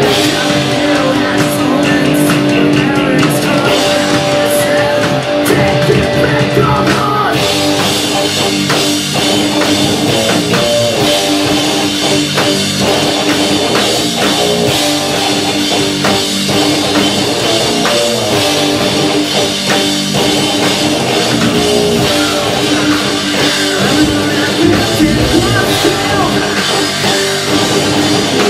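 Live rock band playing, with electric guitars, bass guitar and a drum kit. About seven seconds in the sound grows fuller, with a steady wash of cymbals.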